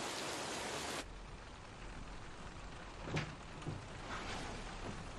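Steady hiss of rain that drops suddenly to a quieter, duller hush about a second in, with a few soft taps after.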